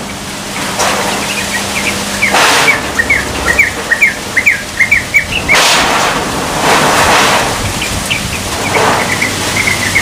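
Young yellow-vented bulbul (trucukan) still learning to sing: a quick run of short, rising chirps for several seconds, then a softer, sparser run near the end. A few short rushes of broad noise sound in the background.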